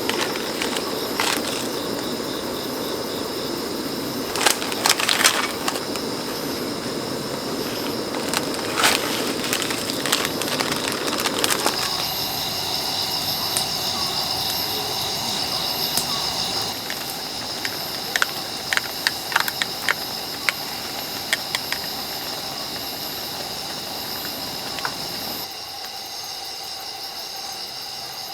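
Insects chirring steadily in a high pitch, with scattered sharp clicks and knocks. A low rushing noise under them stops abruptly about twelve seconds in.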